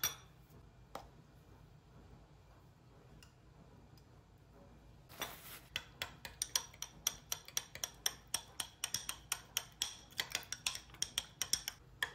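Metal spoon stirring mayonnaise in a small glass bowl. There are a couple of single clinks, then from about five seconds in a brief scrape and a long run of quick clinks against the glass, several a second.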